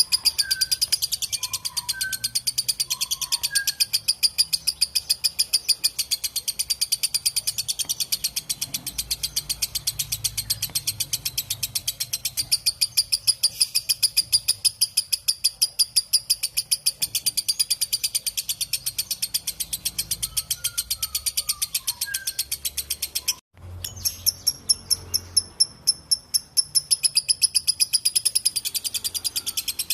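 Lovebird's long 'ngekek' chatter: a fast, unbroken string of shrill repeated notes, breaking off briefly about 23 seconds in and then carrying on.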